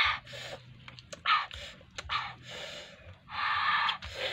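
Boys' breathy exclamations and sharp breaths in several short hissing bursts, the longest near the end.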